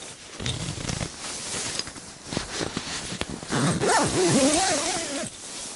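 Rustling and zipper-like scraping with a few clicks, with a short wavering whine about four seconds in.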